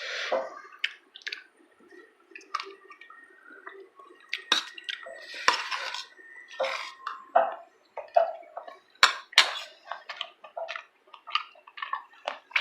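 Eating utensils clinking and clattering against dishes in irregular short knocks and clinks.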